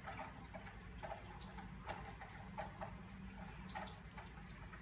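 Faint, light clicks of a crochet hook working single crochet stitches in yarn, about two to three a second and unevenly spaced, over a low steady hum.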